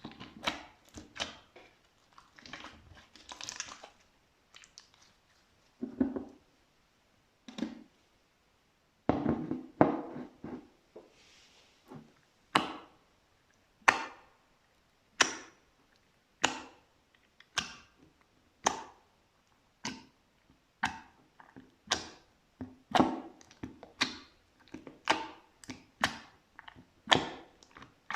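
Slime being pressed and poked, giving sharp, sticky pops and crackles as air pockets burst. The pops are irregular at first, then come about once a second from about halfway and more often near the end.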